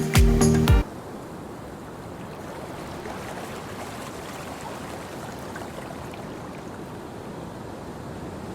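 Background music with a regular beat cuts off suddenly under a second in, leaving the steady wash of waves on a beach.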